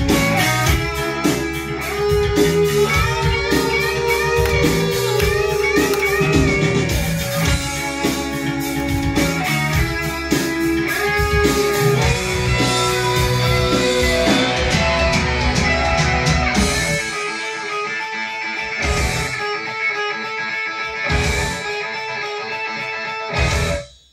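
Guitar-led music playing loud. The bass drops away about seventeen seconds in, leaving thinner guitar, and the music cuts off suddenly just before the end.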